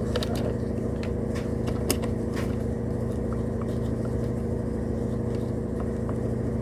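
Steady electrical hum from a powered HO model train setup, with a few faint clicks. The locomotive on the track is not running, even at full power.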